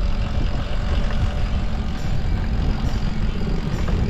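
A motor running steadily under a low rumble, with a steady hum that stops near the end.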